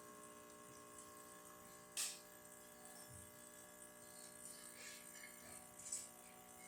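Near silence: a faint steady hum with a soft knock about two seconds in and another near six seconds.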